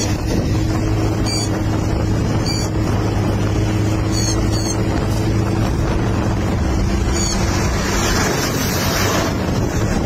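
Wind buffeting the phone's microphone, with a steady low hum under it that fades out near the end. Several short, high bird chirps come through, the first about a second and a half in and the last about seven seconds in.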